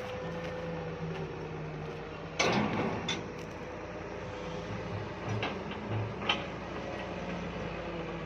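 Diesel engine of a Doosan 140 excavator running steadily, with a loud metallic clank and scrape about two and a half seconds in, then several lighter knocks.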